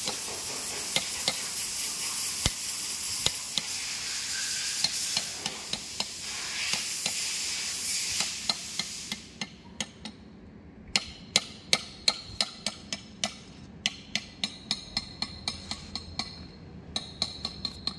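Hammer tapping a steel drift to seat a bearing in a BEML BD155 bulldozer transmission housing: a run of sharp metallic taps, roughly three a second. A steady hiss underlies the taps and cuts off about nine seconds in.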